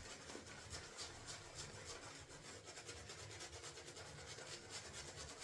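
Shaving brush with a 26 mm Maggard mixed knot working soap into lather: faint, continuous rapid swishing and rubbing strokes of wet bristles.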